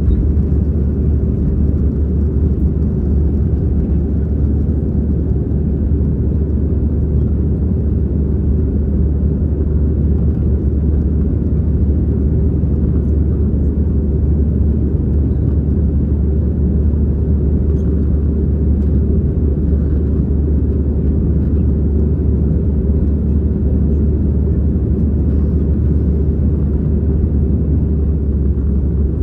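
Airbus A320-200 passenger cabin during the climb after takeoff: a steady, loud low rumble of the jet engines and airflow, unchanging throughout.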